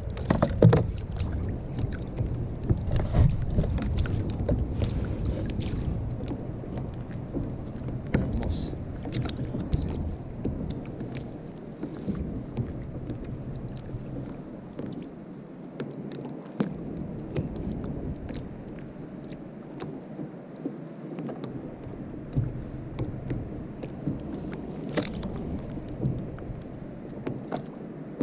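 Water sloshing around a sit-on-top kayak with wind on the microphone. Scattered small knocks and rustles come from handling a freshly landed fish and the rod. The sound is louder in the first few seconds.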